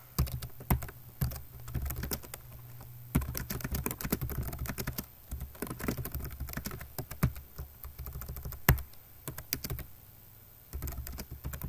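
Computer keyboard being typed on: irregular key clicks, with a fast run of keystrokes about three seconds in and a short pause near the end.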